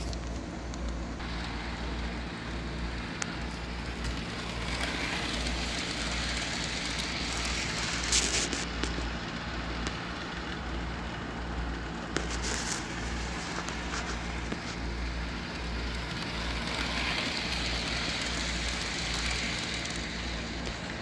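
Model train running around a layout: a steady rushing hiss of wheels on rails and the locomotive's motor, over a low steady hum, with a few sharp clicks about eight and twelve seconds in.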